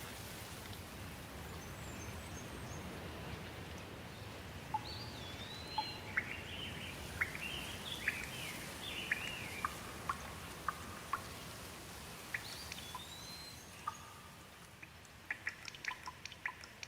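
Steady rain with birds calling through it: a few swooping whistled notes and a quick series of short chirps. Near the end the rain eases and single drops tick and drip sharply.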